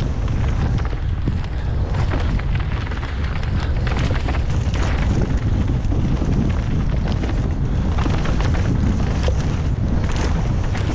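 Wind buffeting the microphone of a helmet-mounted camera on a fast downhill mountain-bike descent, a constant heavy rumble, with frequent sharp knocks and rattles from the bike and tyres over loose gravel and rock.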